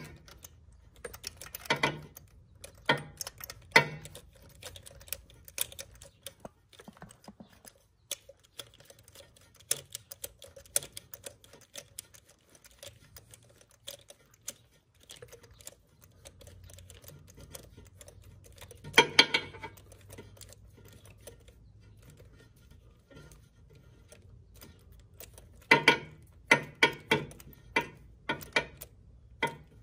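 Hand ratchet clicking in short runs, with scattered small metal tool clicks between, as a new spark plug is run in and tightened by hand through an extension down the plug well.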